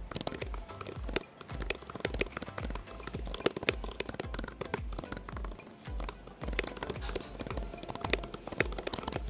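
Computer keyboard typing, a run of quick irregular key clicks, over background music with a steady bass beat.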